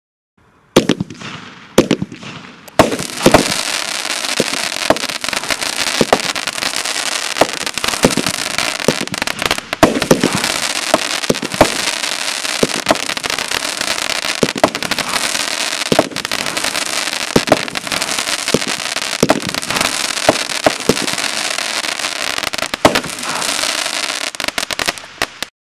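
Crackling Color Palm consumer firework going off: repeated sharp launch thumps, about one every second and a half, under continuous dense crackling from the crackling palm bursts. The crackle sets in about three seconds in and cuts off suddenly near the end.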